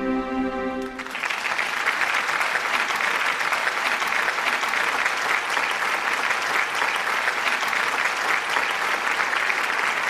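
Music with held notes cuts off about a second in, giving way to steady applause from a crowd, many hands clapping densely without a break.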